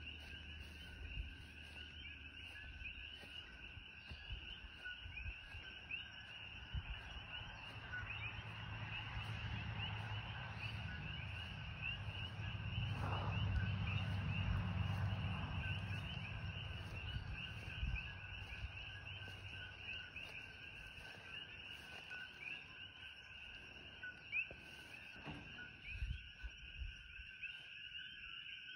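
A dense, steady chorus of many coqui frogs, their short chirping calls overlapping without a break. A low rumble swells through the middle and fades again.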